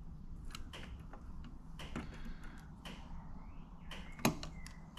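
Scattered light clicks and knocks from handling a vehicle door and its rubber seal, with one sharper knock about four seconds in, over a steady low hum.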